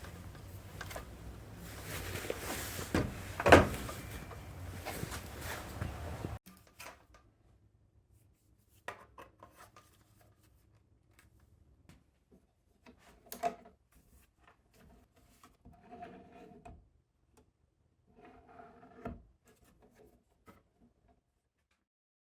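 Clicks, knocks and rubbing as a tool is handled. A loud knock comes about three and a half seconds in over a steady hiss, which cuts off after about six seconds; after that come sparse, quieter clicks and short knocks.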